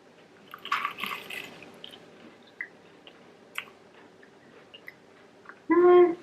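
A crunchy bite into a fried onion ring about a second in, followed by quiet chewing with small wet clicks. Near the end comes a short loud hummed "mm" of approval.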